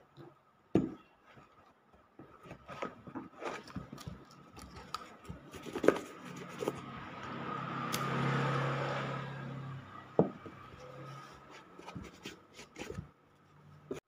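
Caterpillar leather work boot being handled on a wooden workbench: scattered knocks and scrapes as it is turned and set down, with a cloth rubbing over the leather that swells and fades in the middle.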